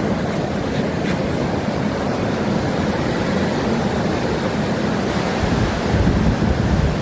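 Hurricane wind blowing hard and buffeting the microphone: a steady low rush that swells with a stronger gust about six seconds in.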